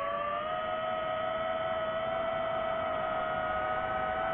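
DJI quadcopter drone's motors and propellers whining steadily, several close pitches together, rising slightly in pitch about half a second in and creeping higher after.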